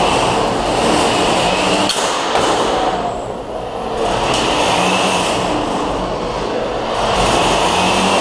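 Small 1-lb combat robots' electric motors whirring in surges that swell and fade every few seconds, with one sharp knock of a hit about two seconds in.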